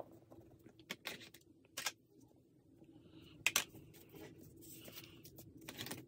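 Faint scratching of a coloured pencil on a cut-paper leaf, with a few short, light clicks and taps as pencils and paper pieces are picked up and set down on the desk.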